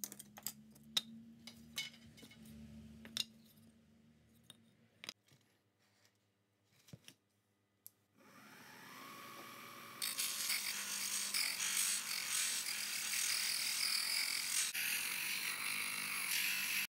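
Scattered knocks and clicks of wood pieces being handled, then about eight seconds in a homemade bench grinder's motor spins up to a steady whine. From about ten seconds a loud, harsh grinding noise sets in as wood is pressed against the spinning wheel.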